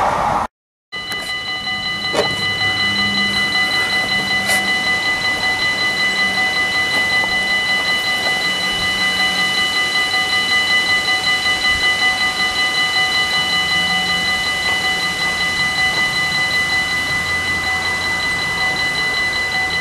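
Electronic level-crossing warning bell ringing continuously, an even, rapidly repeating ring on several fixed pitches that starts just under a second in, after a brief silent gap.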